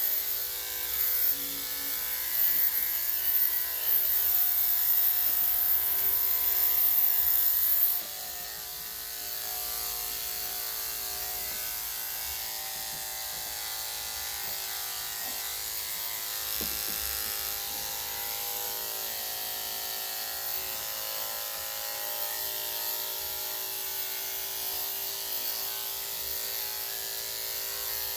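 Corded electric dog clippers running and clipping a Yorkshire Terrier's coat. The sound is louder and hissier for the first eight seconds or so, then drops to a steadier, quieter buzz.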